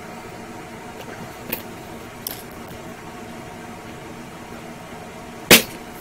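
Small hand tools handled on a cardboard-covered workbench: a couple of light clicks, then a sharp knock about five and a half seconds in as a tool is set down, over a steady background hum.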